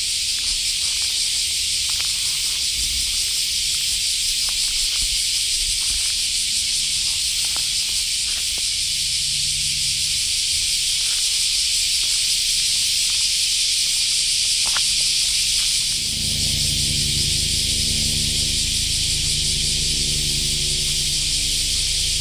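A dense, steady chorus of insects shrilling in the woods, with light scattered ticks of steps and twigs in the undergrowth. About two thirds of the way through, a low steady hum joins underneath.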